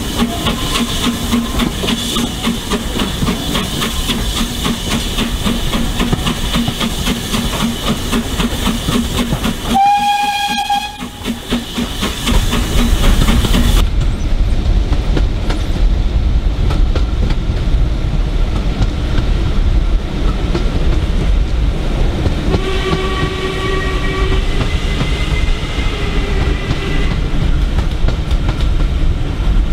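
Steam-hauled passenger train heard from an open carriage window: wheels clattering over the rails with a steady running rumble. A short high whistle sounds about ten seconds in, and a lower whistle is blown twice in the second half.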